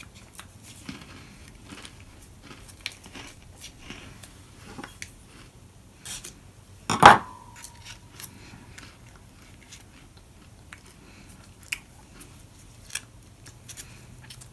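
Small rustles and crinkles of a plastic MRE peanut butter pouch being torn and worked open by hand. About seven seconds in comes one sharp clink that rings briefly.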